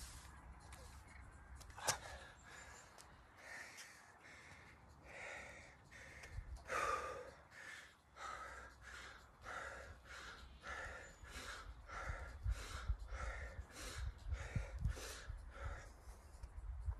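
A man breathing hard from exertion during burpees and squats: short, forceful breaths in quick succession, about one to two a second. A single sharp click about two seconds in.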